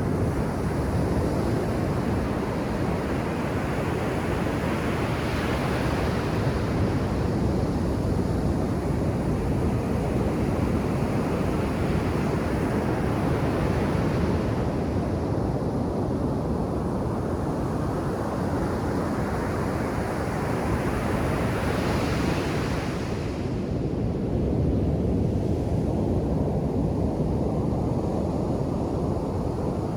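Ocean surf breaking and washing up a sandy beach: a continuous rushing hiss that swells three times as waves break and run up the sand.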